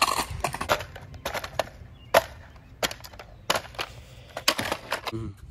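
Small portable stereo being bashed against pavement and concrete: about a dozen irregular sharp knocks and clatters, the loudest about two seconds in.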